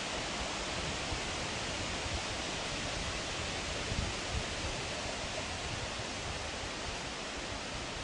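Steady, even hiss of outdoor background noise, with a couple of brief low thumps about four seconds in.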